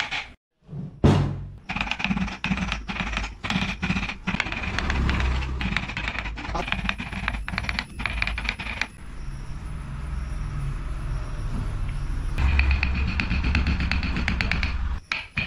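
Wooden mallet striking a steel carving chisel into wood: rapid repeated sharp taps that stop for a few seconds after the middle.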